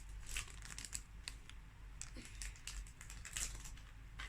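Irregular light clicks and rustling from small plastic items and packaging being handled.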